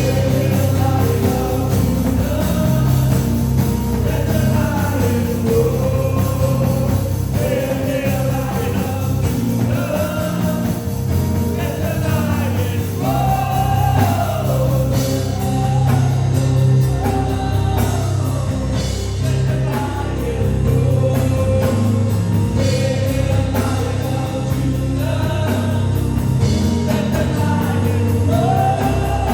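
Live gospel worship music: singers with a band playing a steady bass-heavy accompaniment.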